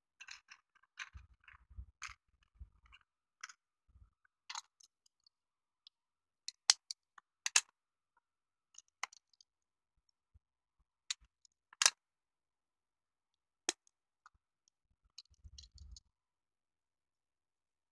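Small plastic clicks and snaps from a Tomix N-gauge 115 series model railway car being taken apart by hand as its body shell and parts are prised loose. A handful of sharp, louder clicks stand out among fainter ones, with soft handling rustle near the start and again near the end.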